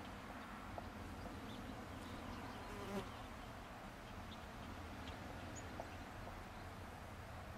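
Honey bees buzzing steadily as they forage among cherry blossoms, with a single brief knock about three seconds in.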